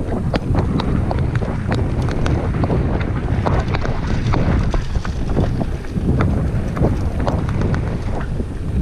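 Mountain bike riding fast down a dirt trail: wind rumbling on the bike-mounted microphone, with frequent clicks, knocks and rattles from the bike over the bumps.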